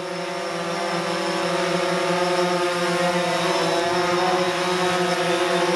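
DJI Phantom 4 Pro quadcopter hovering close by, its propellers giving a steady hum of several held pitches that grows a little louder in the first second or so, over a hiss that fits the steady rain.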